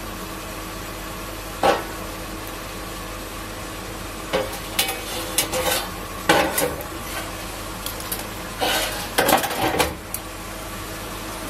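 Stainless steel square tubing being handled on a stainless steel sheet: a single knock, then several clusters of metallic clinks and scrapes as the tube is moved and set down, over a steady low hum.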